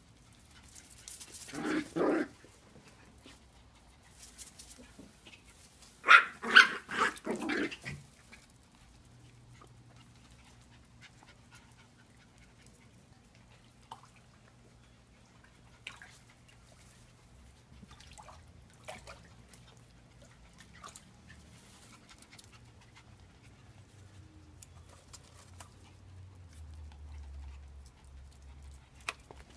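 A Coton de Tulear barking: a first bark about two seconds in, then a quick run of several barks around six to eight seconds in. After that only faint scattered clicks.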